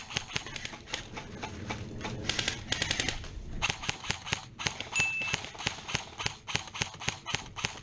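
Airsoft guns firing: sharp, irregular shots and short bursts, with a rapid burst a little over two seconds in.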